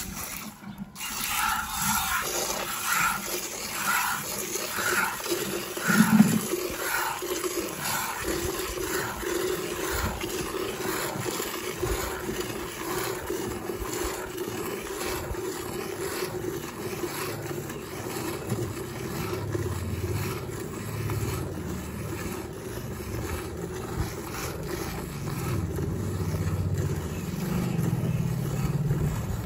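Hand-milking: jets of milk squirting into a metal pan in a regular rhythm, about two squirts a second, with a steady hum underneath. There is one louder thump about six seconds in.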